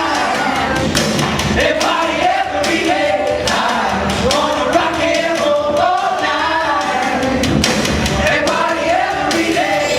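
Loud music with a singing voice carrying a melody over continuous band backing.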